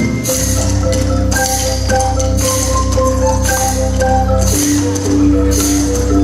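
Music with a steady beat and a melody of short, bright notes.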